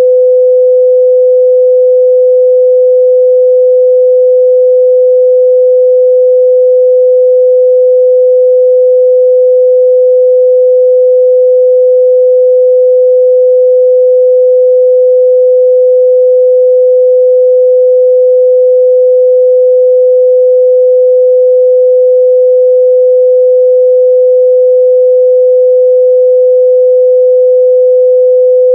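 A steady, loud 505 Hz sine-wave test tone: a single pure pitch held without change, with no overtones.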